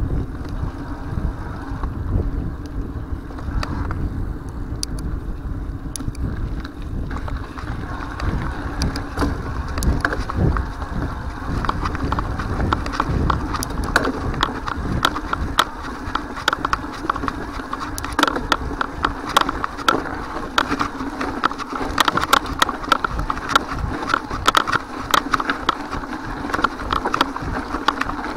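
Mountain bike riding over a loose-stone gravel track: the tyres crunch on the stones and the bike rattles in a dense, irregular run of clicks from about eight seconds in. Wind rumbles on the handlebar camera's microphone throughout.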